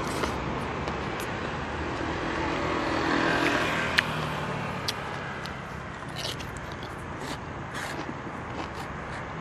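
Steady street traffic, with a vehicle swelling past about two to four seconds in. Light clicks and scrapes of chopsticks on a foam plate come and go over it, the sharpest about four seconds in.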